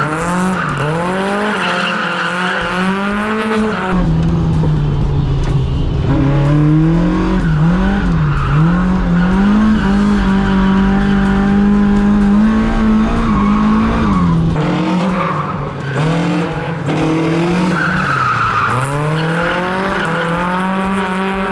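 Car engine held high in the revs while drifting, the pitch dipping and climbing back several times as the throttle is worked, with tyre squeal.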